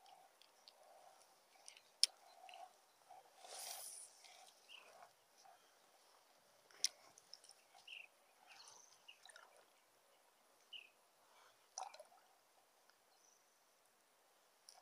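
Near silence: faint outdoor ambience with a few small clicks and a short hiss about three and a half seconds in.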